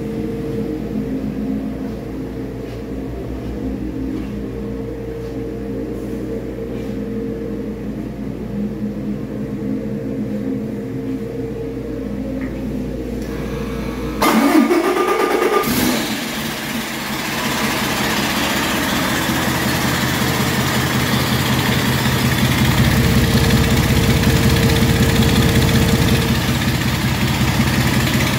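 2020 Paccar MX-11 inline-six diesel running out of the truck on a test stand, which the seller says runs excellent. It idles steadily, then about halfway through it is revved with a quick rising pitch and holds at a higher, louder speed, getting louder again near the end.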